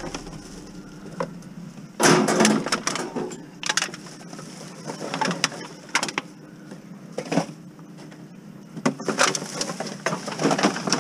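Metal wire shelving and bags of plastic bottles being shifted and packed into a full vehicle cargo area: clattering, knocks and crinkling in uneven bursts, the loudest about two seconds in and another spell near the end.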